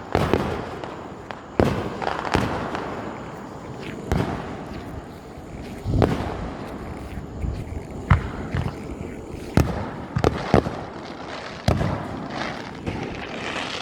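Fireworks exploding: a dozen or so sharp bangs at uneven intervals, each trailing off with a short echo.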